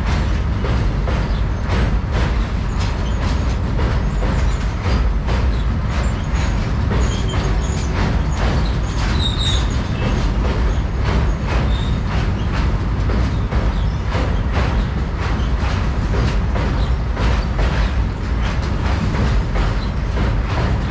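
Freight train wagons rolling past on a bridge: a steady heavy rumble with the clickety-clack of wheels over rail joints repeating throughout.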